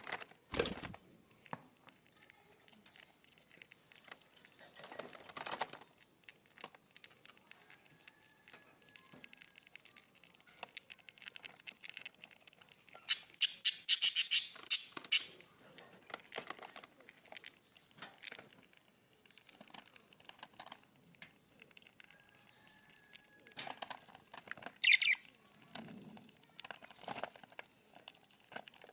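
Budgies with their newly hatched chicks: scattered scratching and clicking, a loud run of rapid fluttering about halfway through, and a short chirp near the end.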